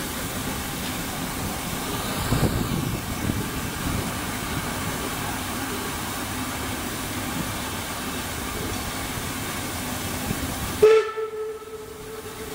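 Class 44 steam locomotive 44 1486-8 working: a steady hiss of steam, with a louder rush about two seconds in. Near the end a sudden loud sound cuts the hiss away and a steady tone begins.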